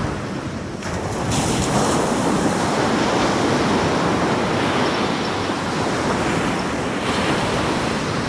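Surf breaking and washing up a sandy beach, swelling about a second in and easing near the end, with wind on the microphone.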